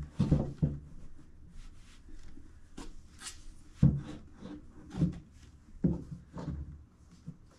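Wooden shelf panels being handled and fitted together: several dull knocks with short scrapes and rubs between them.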